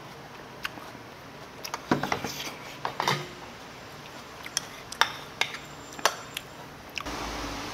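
Cutlery clinking and scraping against bowls and dishes during a meal: a series of sharp clicks, several close together about two and three seconds in. A steadier background noise comes up near the end.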